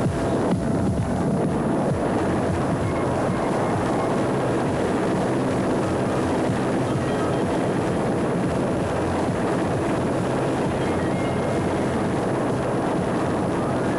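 Steady, loud roar of a jet aircraft with a deep rumble, holding at an even level throughout.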